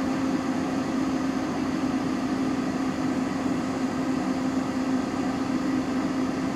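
Auto Meter SB-5DT battery load tester running under a load of about 400 amps: a steady whirring noise with a low hum that does not change.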